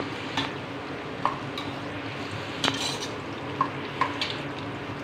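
Sliced onions frying in hot oil and ghee, a steady sizzle, while they are stirred: the utensil scrapes and knocks against the pan every half second to second, loudest about two and a half seconds in. The onions are being sautéed toward brown.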